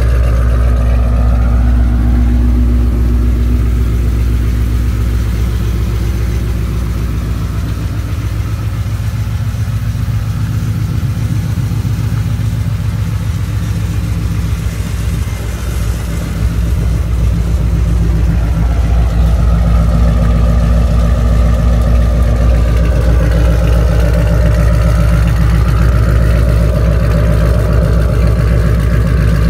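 2007 Saleen Parnelli Jones Mustang's 302 V8 idling steadily. It grows somewhat quieter for a while in the middle and comes back fuller near the end.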